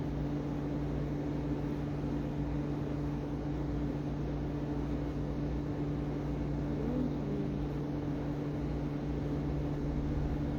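Steady low electrical or mechanical hum with a constant drone under an even hiss, unchanging throughout; no distinct chewing or utensil sounds stand out.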